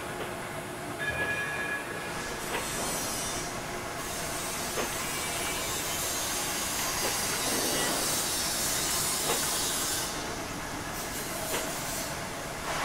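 Steam locomotive sound effects: a steady hiss of steam with a few short knocks now and then, and louder hissing around the middle.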